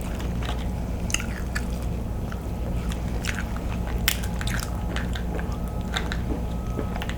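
Close-miked chewing and wet mouth sounds of eating king crab, with scattered sharp clicks and crackles from handling the crab shells, over a steady low hum.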